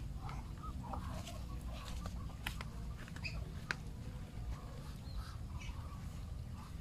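A flock of Muscovy ducks feeding from a plastic basin: soft, short clucking calls, with scattered sharp clicks of bills pecking.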